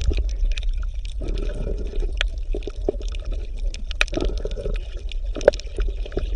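Bubbling, gurgling water with scattered small pops and clicks over a steady low rumble.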